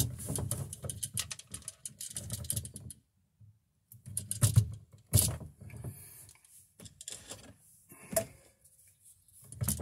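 Spring-loaded wire strippers at work on copper house wire: a run of sharp clicks and snaps from the jaws and handles, with rustling as the wire is handled, broken by a short silence about three seconds in.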